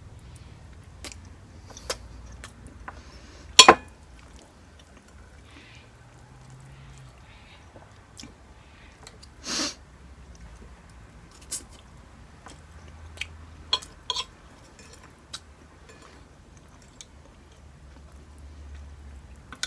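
Close-miked chewing of pasta bake and crumbed fish, with scattered sharp clicks of cutlery on a plate; the loudest is a double click a few seconds in, and there is a brief hissing burst about halfway.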